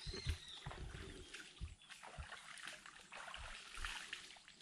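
Faint steady trickle of water and outdoor background hiss, with irregular low thumps on the microphone.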